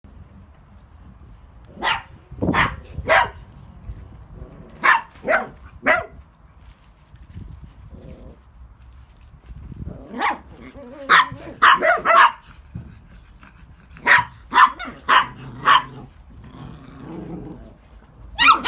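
Small dogs barking while they play: sharp yappy barks in quick groups. There are three barks about two seconds in, three more around five seconds, a dense cluster around ten to twelve seconds, four around fourteen to sixteen seconds, and another burst near the end.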